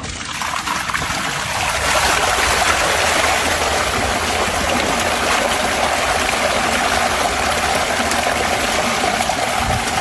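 Water rushing steadily from a sewer line being cleared, building over the first two seconds and then holding, with a low steady hum beneath.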